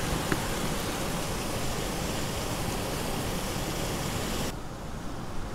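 Steady rushing of water from a small waterfall, which drops away abruptly about four and a half seconds in.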